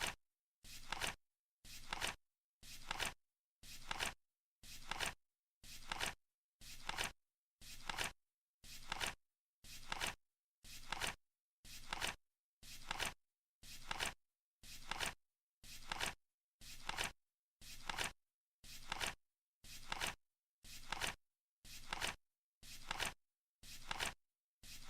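Flip clock's flap turning over once a second, each flip a short rustle that ends in a sharp click, with silence between, ticking off the seconds of a countdown timer.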